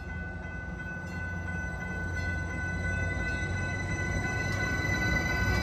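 Stadler FLIRT diesel multiple unit passing close at a grade crossing: a low rumble of wheels and running gear that grows louder, with a steady high-pitched ringing from the crossing bell over it. A faint rising whine comes in during the second half.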